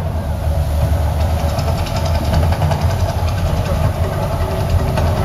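The Mirage volcano attraction erupting: a loud, steady, deep rumble as its fire jets flare above the rock.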